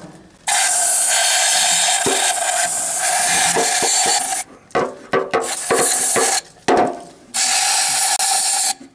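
Aerosol spray can hissing through a red extension straw into the throat of a dirty carburetor, in three sprays: a long one of about four seconds, then two shorter ones, with a few clicks and rattles between.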